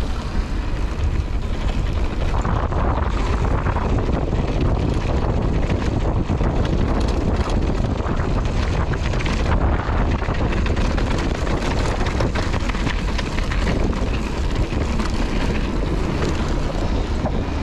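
Giant Reign mountain bike rolling down a dirt trail. Steady wind rush on the GoPro's microphone and a low tyre rumble, with frequent small clicks and clatter from the bike.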